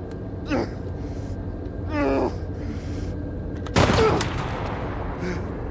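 A man groaning twice, short and falling in pitch, over a steady low engine drone, then a single loud gunshot about four seconds in that dies away over half a second.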